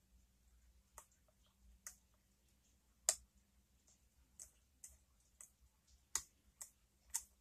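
Lock pick working the pins of a clamped challenge pin-tumbler lock: a string of small, irregular metallic clicks, the loudest about three seconds in, as pins set under the pick and tension.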